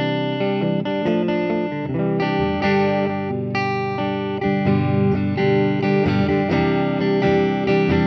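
Electric guitar played clean: a 2010 Gibson SG Standard fitted with a Halon titanium tailpiece, through a 1980s Fender Super Champ amp. It plays a steady run of picked chords and single notes that ring on, changing about every half second.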